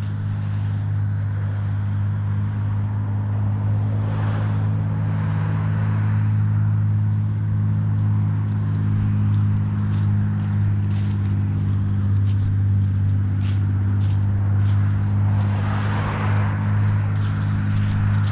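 A steady low hum runs throughout while vehicles pass twice, swelling and fading about four seconds in and again near the end, with footsteps and rustling through grass.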